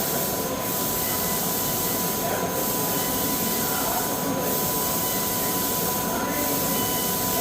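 Metal fabrication machinery running steadily: a dense even noise with a constant high whine, the high hiss dipping briefly about every two seconds.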